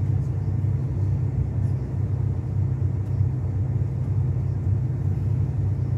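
Mercedes-Benz O-500RSD 2441 coach's diesel engine running with a steady low drone.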